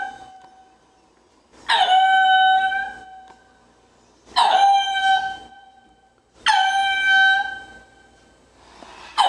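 Black-and-white ruffed lemur calling: three loud, clear calls about two and a half seconds apart, each opening with a quick drop in pitch and then held for about a second before fading. Another call begins near the end.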